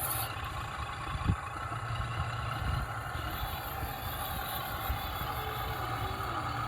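Radio-controlled rock crawler's electric motor and drivetrain running steadily with a whine, and a single knock about a second in.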